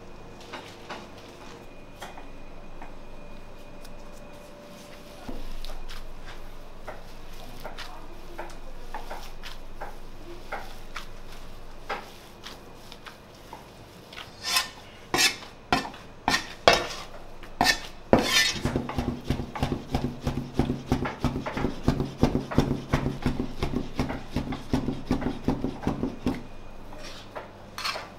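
Curved zırh mincing knife chopping ground meat on a cutting board. After a low first half, a few sharp knocks start about halfway, then a fast, even run of knocks on the board goes on until shortly before the end, with a steady hum under it.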